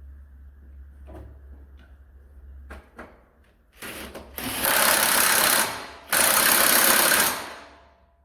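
A rapid mechanical rattle in two loud bursts of about a second and a half each, close together, after a low steady hum stops.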